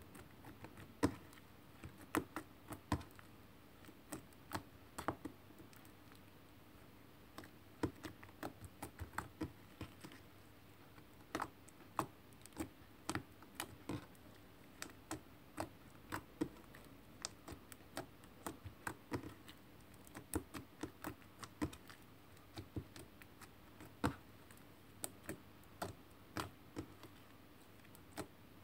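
Fingers pressing and squeezing purple glitter slime, making irregular small clicks and pops, at times several a second, as air pockets in the slime burst.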